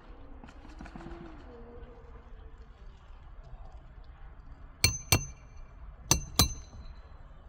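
Hammer striking metal: four sharp ringing blows in two quick pairs, about a second apart, as nails are driven in a shingle repair.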